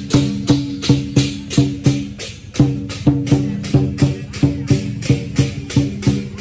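Lion dance percussion: a large drum beaten with clashing cymbals, about three to four strokes a second, with a brief break about two and a half seconds in.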